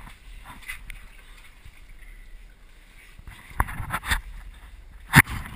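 Water splashing and sloshing as a person moves through a pool: quiet at first, then a few sharp splashes in the second half, the loudest near the end.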